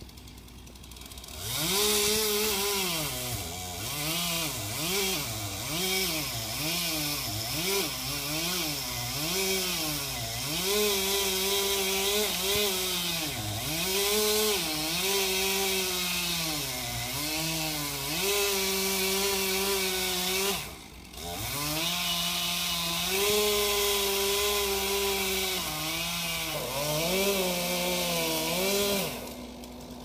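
Chainsaw running and cutting, its engine pitch dipping and climbing back again and again as the chain takes load in the oak wood. It cuts out for about a second a little past the middle, starts again, and stops shortly before the end.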